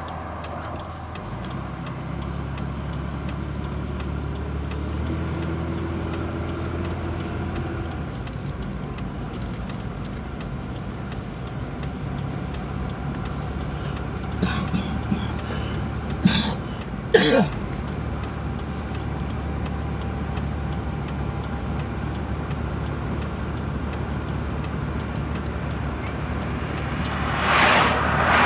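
A motor vehicle's engine running steadily, with a few short sharp knocks about halfway through and another vehicle passing near the end.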